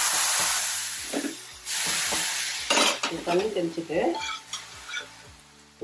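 Ragi-flour dough flatbread sizzling on a hot, dry chapati tawa, in two hissing spells in the first half, dying down toward the end.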